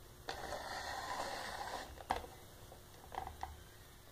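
Handling noise as a small plastic desk fan is moved into place on a wooden floor: a rustling scrape for about a second and a half, then a sharp knock, then a few faint clicks.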